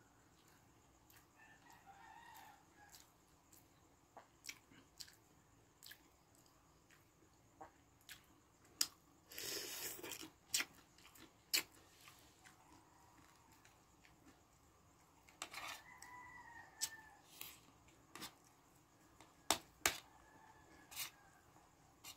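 Spoon and fork clicking against the plate and soup bowl while eating, with chewing and a brief louder noisy burst near the middle. A rooster crows faintly in the background, once early on and again about two-thirds of the way through.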